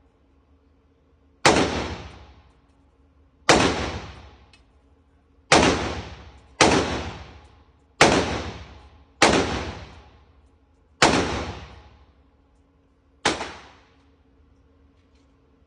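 AR-15 rifle fired eight times, single shots at an uneven pace of one to two seconds apart, each shot echoing away over about a second.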